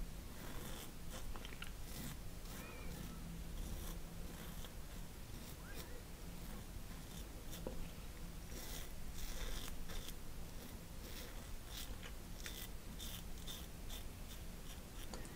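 TATARA Masamune double-edge safety razor with a Polsilver blade cutting through lathered stubble on the first pass. Many short strokes in quick, irregular succession, each a brief scraping rasp.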